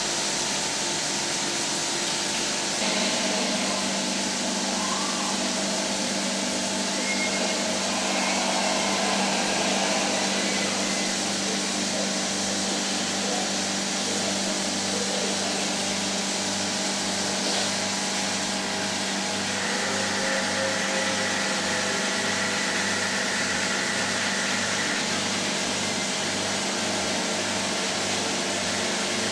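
Cinema film projector and its platter system running, with the lamphouse fan: a steady mechanical hum, under which a low throb repeats about one and a half times a second.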